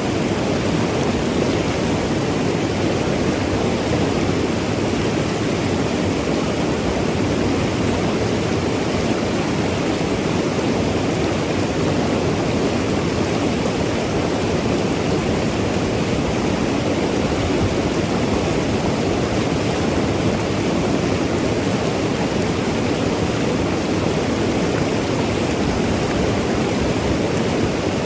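Mountain river rushing and gurgling over rocks, a steady full-bodied water noise that doesn't let up.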